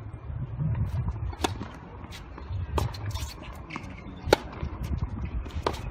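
Tennis rally: a racket strikes the ball about every second and a half, with softer ball bounces on the court between the hits, over a low wind rumble.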